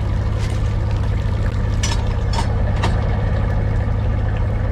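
Boat engine running steadily, with three short knocks about two to three seconds in.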